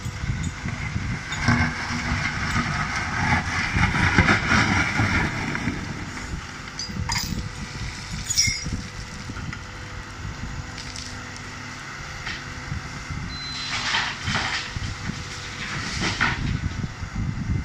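A Liebherr wheeled excavator and a Scania XT dump truck running their diesel engines at a steady low rumble while the excavator digs gravel with its hydraulics. The scraping and grinding of stone in the bucket is loudest from about one and a half to six seconds in, with a couple of sharp clanks a little later and more short scraping bursts near the end.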